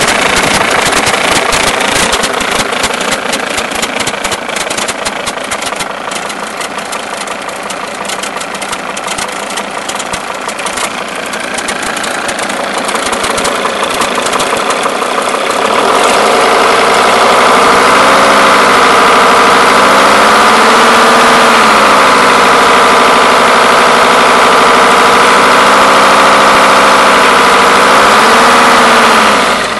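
Mercedes-Benz E290 Turbodiesel's five-cylinder diesel idling with a rapid knocking, caused by a broken one-way clutch pulley on the alternator. About halfway through it gets louder, with a wavering whine over it, and it cuts off just before the end.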